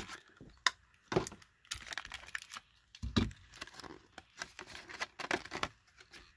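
Clear plastic blister pack and card backing crinkling and tearing as a diecast toy car is worked out of its packaging, with irregular sharp clicks and crackles.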